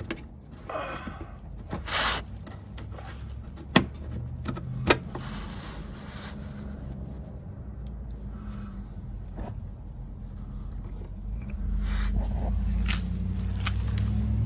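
Clicks and scraping of a turn-signal bulb socket being handled and twisted out of a lamp housing, with two sharp clicks about four and five seconds in. Under them a low vehicle engine hum sets in and grows louder near the end.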